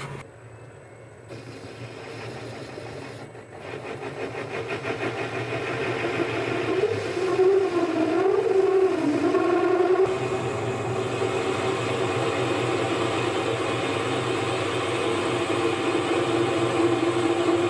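Boxford metal lathe running, its drive giving a steady machine hum and whine that builds over the first several seconds. The main tone wobbles in pitch for a few seconds, then holds steady.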